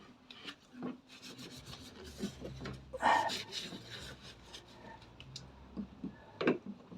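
Rubbing and light knocks of the plastic turn signal lamp unit being wiped and handled, with a louder stretch of rubbing about three seconds in and a sharper knock near the end.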